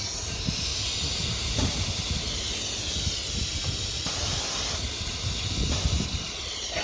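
Steady hiss over a low rumble, the running noise of a CNC router whose spindle was switched on moments before.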